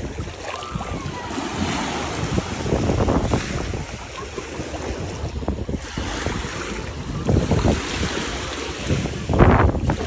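Small sea waves washing up over the sand at the water's edge, with wind rumbling on the microphone. The loudest surge comes near the end as a wave of foam washes in.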